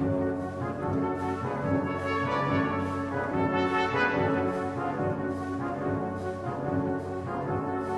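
Orchestral background music led by brass instruments playing held notes.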